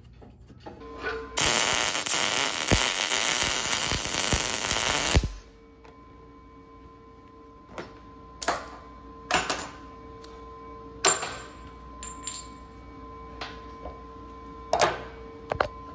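A MIG welder's arc runs steadily for about four seconds, welding shut a worn, ovalled hole in a steel clutch pedal arm. Then come several separate sharp clicks and knocks.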